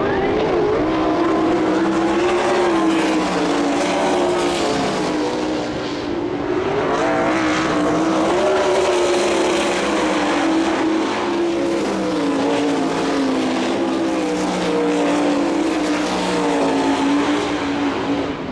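Several sprint cars racing, their V8 engines running together at high revs, the pitch wavering up and down as they go round the track.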